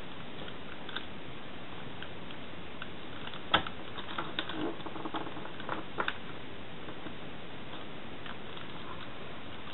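Light clicks and taps from a clear plastic pattern ruler and pen being shifted on fabric over a table: one sharp click about three and a half seconds in, then a few smaller taps up to about six seconds, over a steady hiss.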